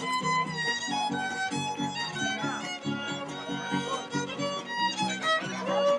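Violin-led music: a fiddle plays a melody over a steady, rhythmic strummed-chord accompaniment.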